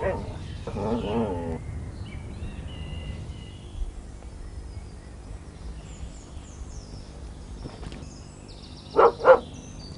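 Quiet woodland ambience with faint bird chirps, then a dog barks twice in quick succession near the end.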